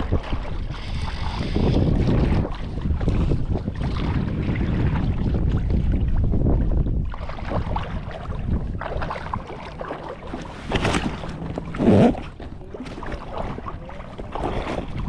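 Wind rushing over the microphone with shallow water sloshing and lapping close by, and one short louder burst near the end.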